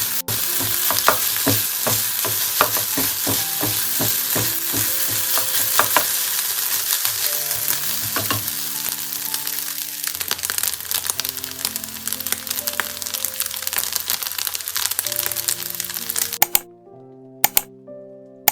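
Food sizzling as it fries in oil in a frying pan, with a few sharp clicks. The sizzling cuts off suddenly near the end, leaving background music.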